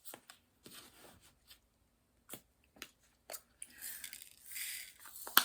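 Small handling sounds of diamond painting work: scattered light taps and clicks with a stretch of soft plastic rustling a few seconds in, and one sharp click near the end.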